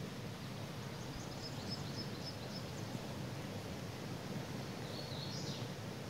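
Steady rush of a forest creek running over rocks, with a bird calling over it: a string of short high notes from about a second in, and a brief higher phrase near the end.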